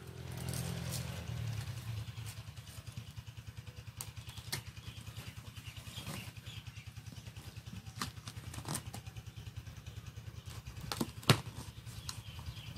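Hands handling a taped cardboard box, with a few sharp taps and clicks, the loudest near the end, over a steady, fast, low throbbing hum.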